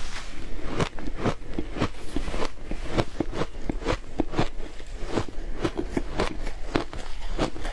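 Mouthfuls of frozen shaved ice being bitten and crunched, a dense run of sharp, irregular crunches, several a second.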